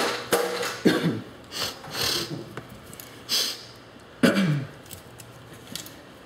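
A man's wordless vocal sounds, a couple of short falling 'hmm'-like sounds with breathy exhales and sniffs between them, over the steady hum of a fan.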